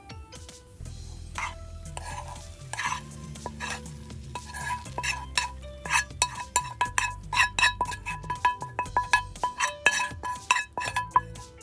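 A utensil stirring food in a pan, striking and scraping the metal in quick repeated strokes that turn busy about halfway through, with light sizzling.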